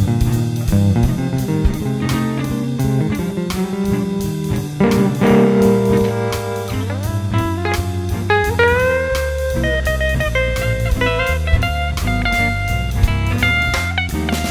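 Jazzy blues instrumental: a guitar plays a lead line over bass and a steady drum beat, with a note bent upward and held about halfway through.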